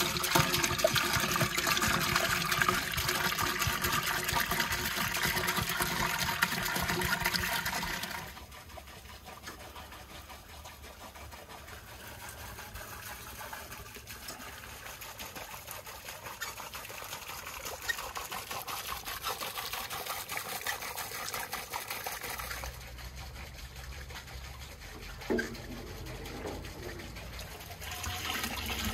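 Fresh milk poured in a heavy stream into a large pot, splashing and frothing, for about the first eight seconds, then stopping abruptly. Near the end, milk is scooped with a metal ladle and poured back into the pot.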